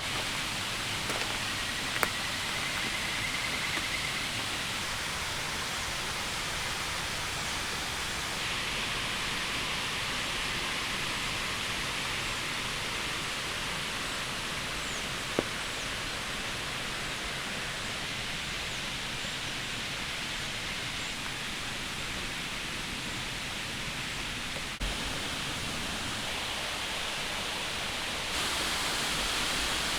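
Steady rush of a river running past the campsite, its level changing abruptly a couple of times. Two sharp ticks, one near the start and one about halfway through.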